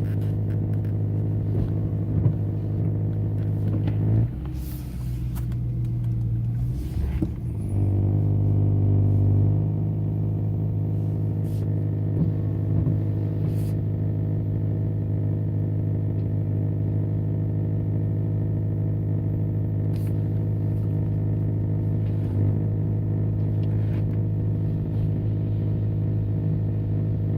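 Steady buzzing hum from a BMW E90 M3 with its 4.0-litre V8 running; the owner does not know what causes the buzz. About four seconds in the tone shifts and wavers for a few seconds, then runs a little louder until about ten seconds in before settling back to the steady buzz.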